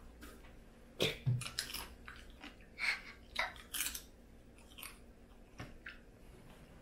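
A person eating Cajun-style boiled crawfish: wet chewing with a run of sharp clicks and cracks as the shells are broken apart. The sounds come thickest in the first few seconds and thin out near the end.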